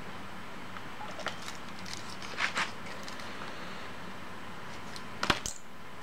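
Small metallic clicks and scrapes of a decoder key being worked in a MIWA 3800 lock cylinder: a light click about a second in, a pair of scraping rattles near the middle, and a sharp cluster of clicks near the end, over a steady hiss.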